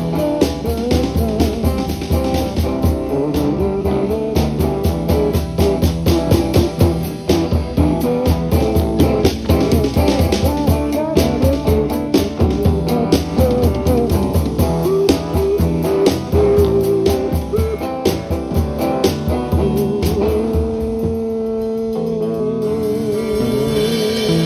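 A Chasidic rock band playing live, with electric guitars over a steady drum-kit beat. Near the end the beat stops, leaving a held, wavering note over a cymbal wash.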